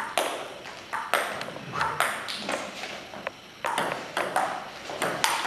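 Table tennis rally: the ball clicks sharply off the table and the rubber-faced bats in turn, about two hits a second, echoing in a hall.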